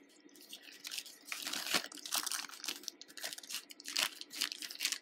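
Off-camera handling of jewelry: irregular rustling with small clicks and clatters as pieces are moved and the next beaded bracelets are picked up.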